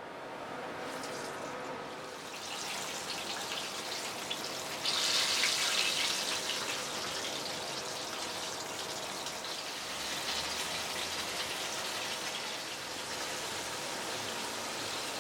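Food sizzling and crackling in hot oil, getting suddenly louder about five seconds in.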